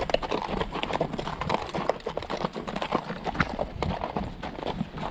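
Horse hooves clopping and scraping over rocky ground, a dense run of irregular knocks.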